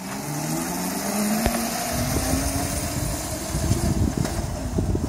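Electric motor of a children's mini scooter whining and rising in pitch as it pulls away, then low rumbling wind on the microphone.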